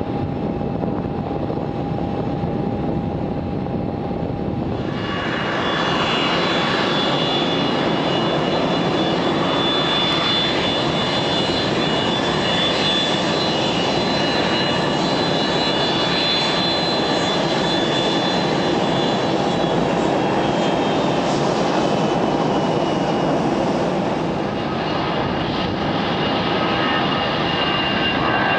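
Boeing 757-200 jet engines running as the airliner taxis after landing: a steady rush with a high whine, louder and brighter from about five seconds in.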